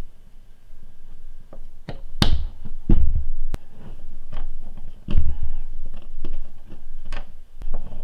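Small clicks and taps of ball bearings being handled and pressed into a plastic RC buggy kingpin, with a few dull thumps against the work table.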